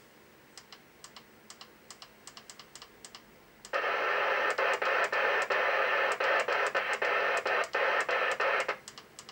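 TTI TCB-660 CB radio being stepped through its channels: at first only faint rapid clicking of the channel buttons. About four seconds in, the speaker opens to a steady hiss of band static, cut by short dropouts at each channel step, then falls quiet again shortly before the end.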